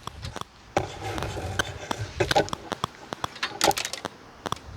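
Scattered clicks, taps and rustling from hands working on a mower's control cable and its squeeze clips, with a louder cluster of clicks a little after halfway.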